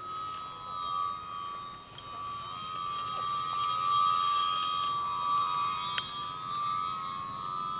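Electric motor and propeller of a DW Foamies Juka 40-inch foam aerobatic RC plane whining in flight: a steady high-pitched drone that wavers slightly in pitch.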